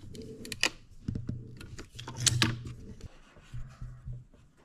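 Ratchet strap being cranked tight: a few sharp clicks and rattles from the ratchet, the loudest a little over two seconds in, as the strap draws the separating spindle together.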